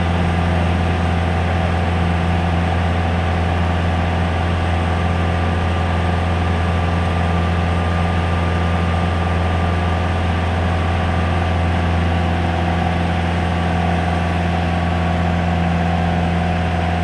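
Steady drone of a light touring aircraft's engine and propeller in flight, heard from inside the cabin: a deep, even hum with a faint higher whine over it.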